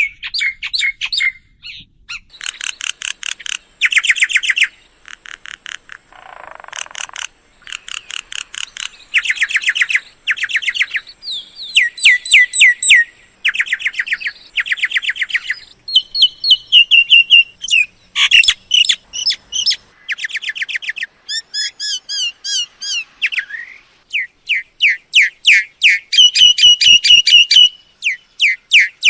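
Myna calls: fast trains of repeated chattering, clicking notes and sharp whistles in bursts of a second or two, the pattern changing from burst to burst, used as a lure call for trapping mynas.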